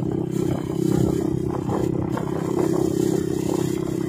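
Steady engine drone of a moving road vehicle, with rushing wind noise over it.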